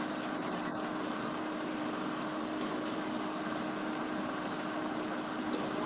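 Steady rushing hum of a commercial kitchen's exhaust hood fan, with a faint low steady tone, picked up through a phone's microphone.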